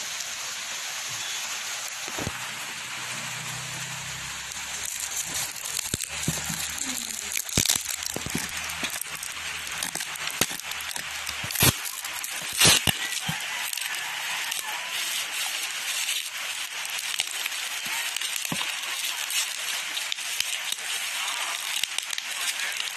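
Plastic packaging and bubble wrap crinkling and crackling as hands unwrap items from a cardboard courier box, with scattered sharp clicks and knocks, the loudest a few near the middle.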